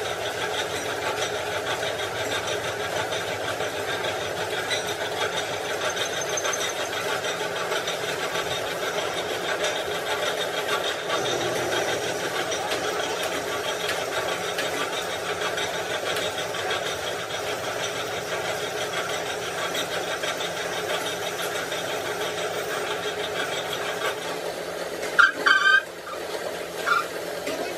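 An engine or motor running steadily with a fast, even pulse. A few short, loud sounds come near the end.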